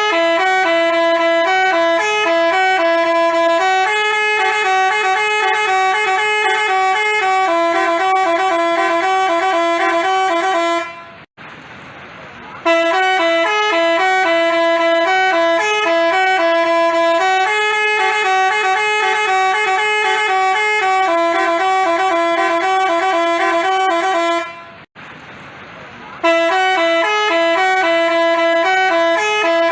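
Telolet basuri multi-tone musical horn playing a jingle of stepped, held notes. The same phrase repeats, cutting off twice for a break of about a second and a half before starting over.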